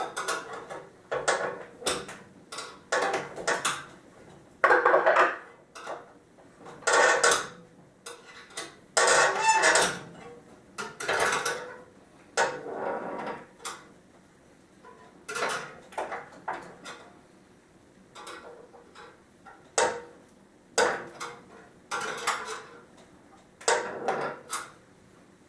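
Screwdriver turning a turnbuckle to tighten the steel cable of a wooden chair seat, with irregular short metallic clinks and rattles against the wood, stroke after stroke. The cable is being brought to high tension to lock the seat's pieces firmly together.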